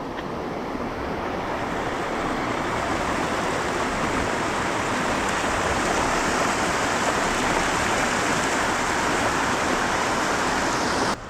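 Heavy rushing water at a lake outflow running high after heavy rain, a steady roar of noise that grows slightly louder and cuts off suddenly near the end.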